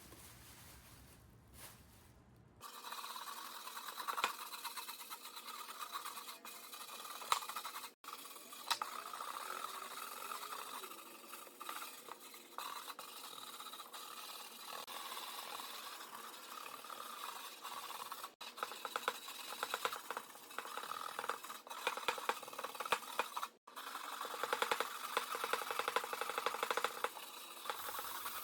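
Metal being scraped or rubbed in quick repeated strokes, a dry rasping sound that starts a few seconds in and breaks off abruptly three times, as if spliced.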